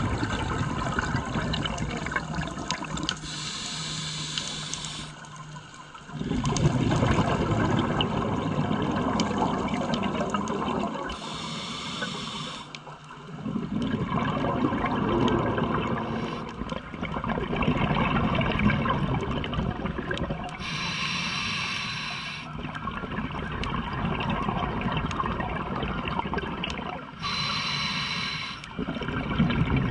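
Scuba diver breathing through a regulator: a hissing inhale four times, about every eight seconds, each followed by several seconds of exhaled bubbles bubbling out around the microphone.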